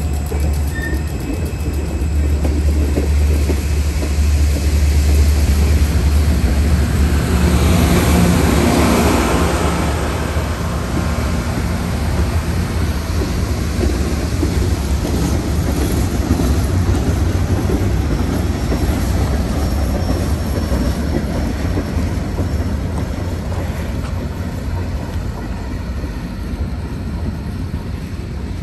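CSX freight train rolling past at close range, its cars' wheels rumbling and clacking on the rails. The train is loudest about eight seconds in and grows gradually quieter as it moves away.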